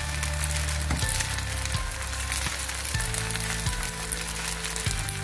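Spaghetti with peas, carrots and ham sizzling and crackling in a hot pan as a metal slotted spoon stirs it, over background music with sustained low notes that change about once a second.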